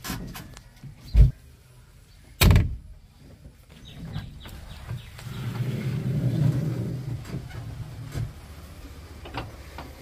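Two sharp knocks, then a heavy machine's engine rising to a low rumble, strongest a few seconds later before easing back.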